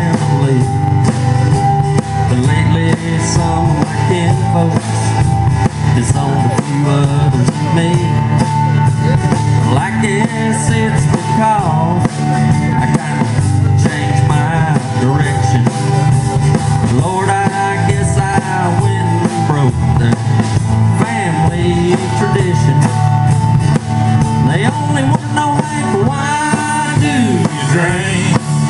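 A live country band playing: strummed acoustic guitar, upright double bass and drum kit, with a lead melody bending in pitch over the top.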